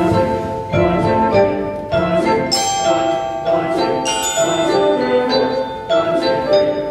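Live contemporary ensemble music led by mallet percussion: marimbas and vibraphones strike ringing chords about once a second over held, steady notes.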